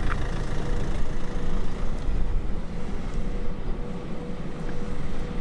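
Car on the move, heard from inside the cabin: a steady low rumble of engine and road noise with a faint constant whine.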